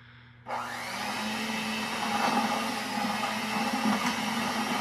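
Electric hand mixer switched on about half a second in, then running steadily with its beaters down in the pulp and seeds inside a hollowed pumpkin, loosening the insides.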